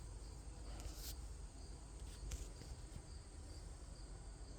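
Cricket chirping steadily, a short high chirp about twice a second, over a low rumble of wind on the microphone, with a couple of soft clicks.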